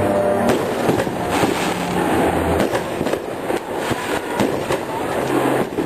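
Aerial fireworks bursting and crackling, a dense, unbroken run of sharp cracks and bangs over a continuous wash of noise.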